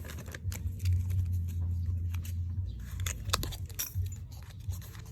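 Small hard items being handled during an unboxing of nail-art supplies: quick, irregular clicks, taps and light rattles of plastic packaging and small parts, over a steady low hum.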